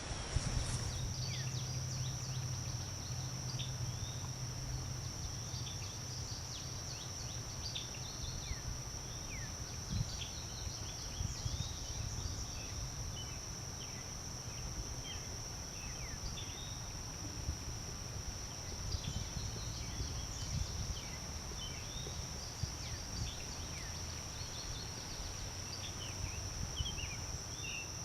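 Woodland ambience: a steady high insect drone, with many short bird chirps and calls scattered throughout, over a low rumble that is strongest in the first few seconds.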